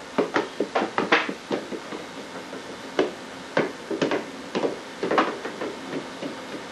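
Quick, irregular knocks and slaps of a toddler's hands and body on a hard floor: a fast burst of about eight in the first second and a half, then scattered single knocks.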